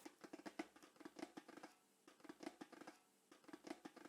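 Faint, rapid clicking in three short runs, with brief pauses between them.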